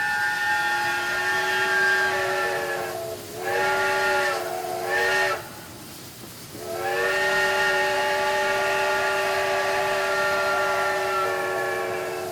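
Steam locomotive chime whistle, several notes sounding together as one chord: a long blast, two short blasts, then a long blast of about six seconds. The pitch sags as each blast is shut off.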